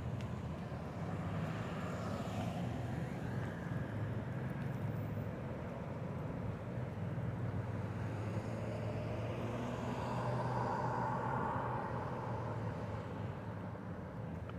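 Road traffic: a steady low rumble with vehicles passing, swelling briefly about two seconds in and more strongly about ten seconds in.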